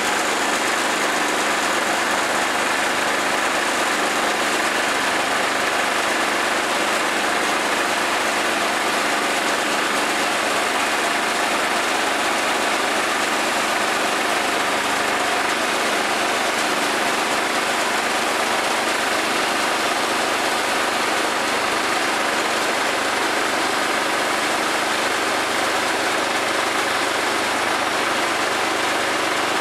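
Woodland Mills portable band sawmill running steadily under load, its gas engine driving the band blade through a Douglas fir log as the saw head is pushed along by hand.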